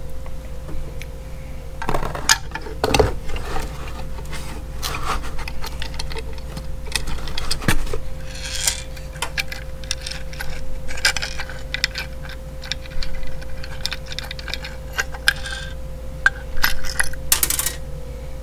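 Small metal mounting hardware (bolt, washers, nut) clinking and clicking as it is handled and fitted to an LED work light's mounting bracket, with knocks and rubbing from handling the light. The clicks come irregularly, over a steady faint hum.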